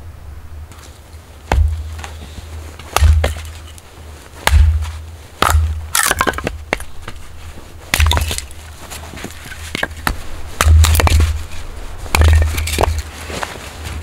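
Axe splitting firewood on a chopping block: about seven sharp chops a second or two apart, each with a dull thud from the block, with the crack and clatter of split wood around the middle.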